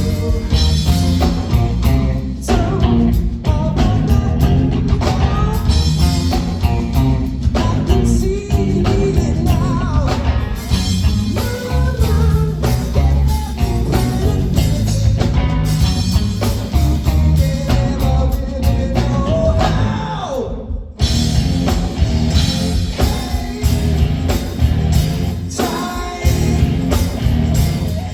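Live rock band with singing and guitar over a heavy bass and drum groove, recorded from the audience. About twenty seconds in, the music breaks off briefly after a falling slide, then the band comes back in.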